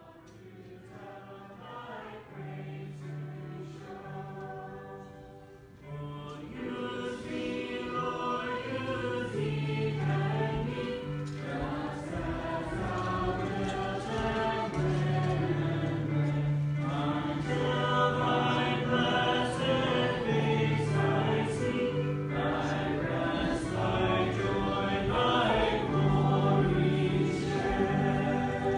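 Church congregation singing a hymn together. It starts softly and grows louder about six seconds in, then carries on steadily in long held notes.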